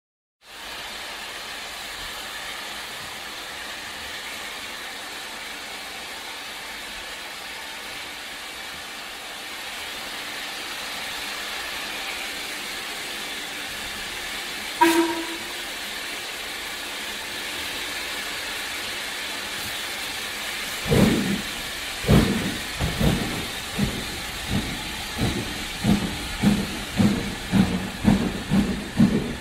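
Steam locomotive starting off: steady steam hiss for a long while, with one short toot about halfway through, then exhaust chuffs that begin slowly and quicken as the engine pulls away.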